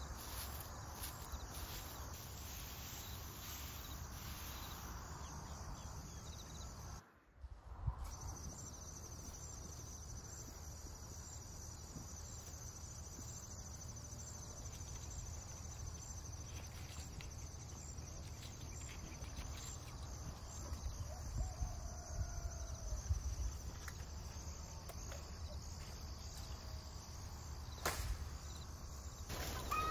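Insects chirring steadily in a high, fine, continuous trill over a low outdoor rumble. The sound drops out briefly about seven seconds in.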